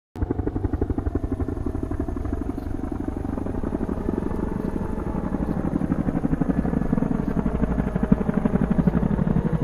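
Helicopter rotor chopping steadily in a fast, even pulse.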